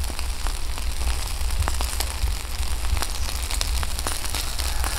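Charcoal fire crackling and sizzling under a roasting chicken, with sharp pops scattered throughout, over a steady low rumble.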